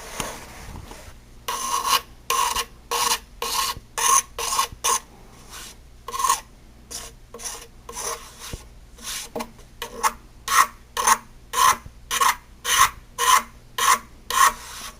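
Excess hot-melt glue being scraped off a plastic furniture edge band in quick repeated strokes, about two a second, with a short pause around five seconds in.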